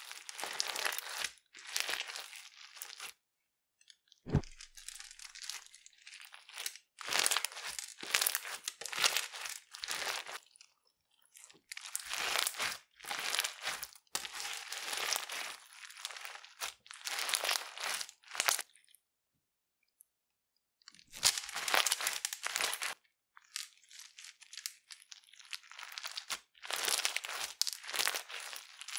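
Crunchy clear slime packed with small plastic beads being squeezed and kneaded by hand, making squishy crackling crunches in irregular bursts with short pauses between squeezes.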